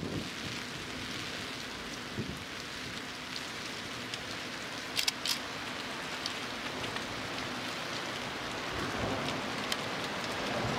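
Steady hiss of falling rain, with two sharp drip ticks about halfway through and a low rumble building near the end.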